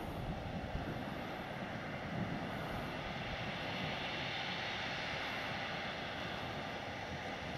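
Case Quadtrac 580 tracked tractor working under load, pulling a disc cultivator through stubble: a steady, even engine drone with no change in pitch.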